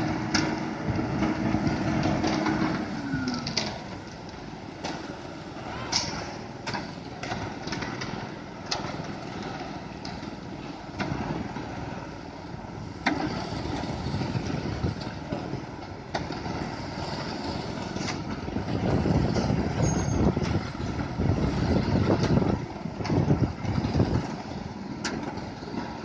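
Hino concrete mixer truck's diesel engine running, with a steady note that drops in pitch about three seconds in, amid scattered clicks and knocks. The engine grows louder again in the last third.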